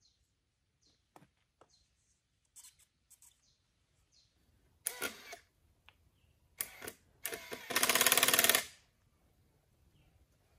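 Handheld power drill boring into a bamboo pole: a few short bursts, then a longer run of about a second and a half, with faint knocks of bamboo before it.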